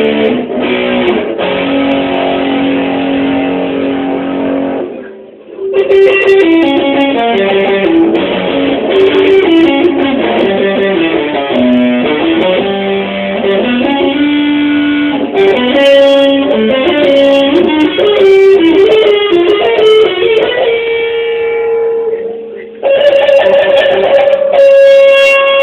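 Music carried by a stepping melody line, breaking off briefly about five seconds in and again about twenty-two seconds in.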